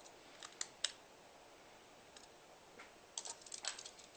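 Light plastic clicks and taps from a Gunpla model kit's parts being handled: three clicks about half a second in, then a quicker cluster near the end.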